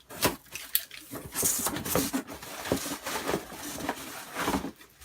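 Handling noise from unboxing a pair of sneakers: rustling and light knocks and clicks as the shoes and their box are handled.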